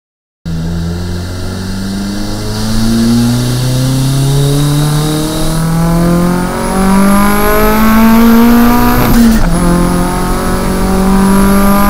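Nissan S13 fitted with a Z1 Touring exhaust accelerating hard, the engine note climbing steadily through the revs. About nine seconds in it drops sharply at a gear change, then climbs again.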